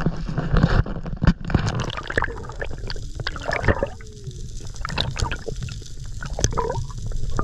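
Sea water sloshing and gurgling against a camera at the waterline, with many small splashes and bubbly clicks; about halfway through the camera is under the surface and the sound turns more muffled.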